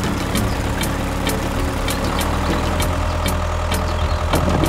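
Tractor engine running steadily, with a regular tick about two to three times a second.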